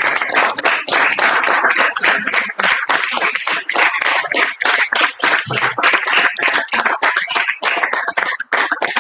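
Audience applauding, many hands clapping densely, thinning out near the end.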